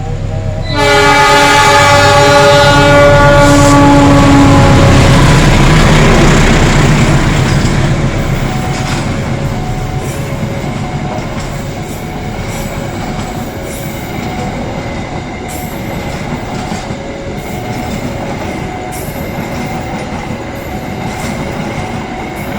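A train's horn blasts once, loud and long, a chord of several tones that drops slightly in pitch as it fades, then the train rolls past with a steady rumble and rhythmic clicking of wheels over the rail joints.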